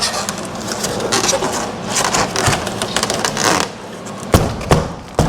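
Foam insulation panel being flexed and pushed into a steel garage door section, scraping and crackling against the metal, with three sharp knocks in the last second.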